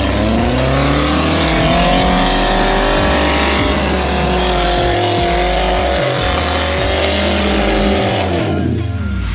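Suzuki Jimny Katana 4x4's engine revving hard under load as it climbs a steep rocky bank. The pitch rises at the start, holds high and steady, then falls away shortly before the end.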